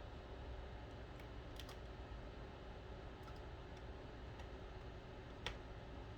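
Faint, scattered small clicks and taps of a small screwdriver and screws being worked into a smartphone's frame, with a sharper click about five and a half seconds in.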